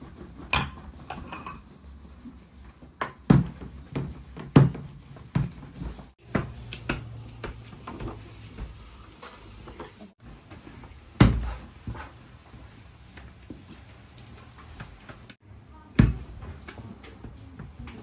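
Hand work at a steel kitchen worktable while samsa are filled: irregular knocks and clatters of bowls and dough on the metal, the loudest about three seconds in, a second and a half later, about eleven seconds in and near the end, over a low steady hum.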